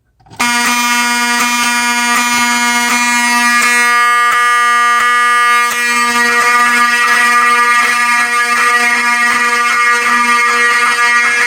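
Two Wheelock 7002T fire alarm horns sounding together in alarm: a loud, steady, continuous buzzing horn tone that starts about half a second in.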